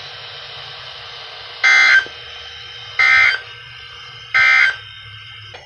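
Three short bursts of NOAA Weather Radio SAME data tones, the warbling end-of-message code sent after an emergency alert, each about a third of a second long and spaced about a second and a half apart, over faint receiver hiss.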